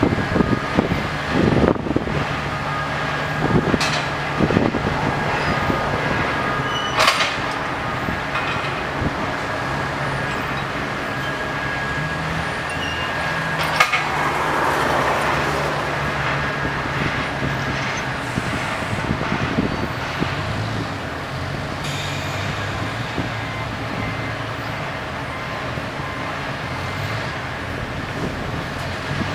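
Rail crane's engine running steadily, with a few sharp knocks scattered through.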